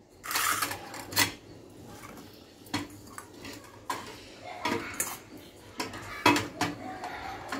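Stainless steel bowls, plates and a fork clinking and knocking on a counter as eggs are handled in a steel bowl: about ten separate clinks, a few ringing briefly.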